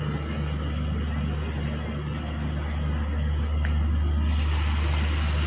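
Intercity passenger train coaches rolling slowly past close by: a steady low rumble of the train on the track, with a low pulse about twice a second.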